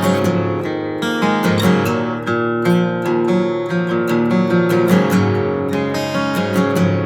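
A 2017 Martin D-28 acoustic guitar playing riffs, with notes and chords struck several times a second and left ringing. It has D'Addario EXP 13-gauge strings tuned down a half step to E flat. It is heard through an iPhone's built-in microphone.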